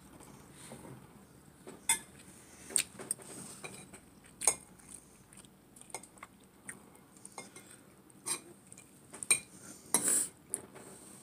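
Cutlery clinking and scraping against a plate or bowl during a meal, in a dozen or so irregular short clinks, the loudest about four and a half seconds in and near the end.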